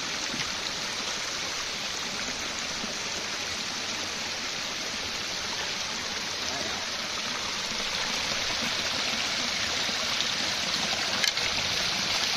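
Small stream trickling and splashing over rocks, a steady rushing hiss that grows a little louder near the end, with one sharp click shortly before the end.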